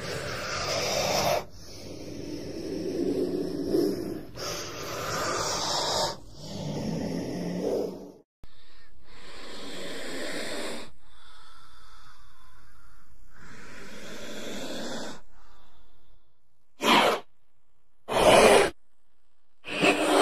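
Cobra hissing: a run of low, breathy hisses a second or two long each, then three short, sharp hisses near the end.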